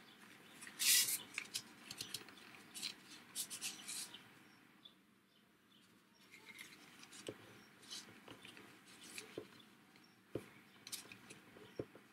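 Hands handling a paper card and threading ribbon through it: light paper rustling, scratching and small taps, loudest in the first few seconds.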